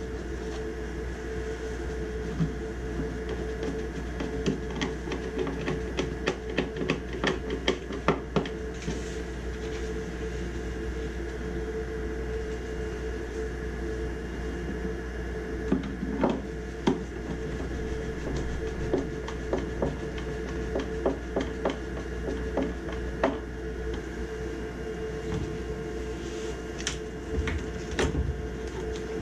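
Hand-tool work on furnace sheet metal: irregular metallic clicks and taps over a steady hum. The clicks come thickest in a run of a few seconds early on, then scatter sparsely.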